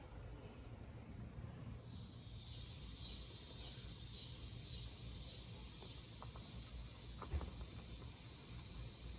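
Steady high-pitched trill of crickets, with a couple of faint clicks about six and seven seconds in.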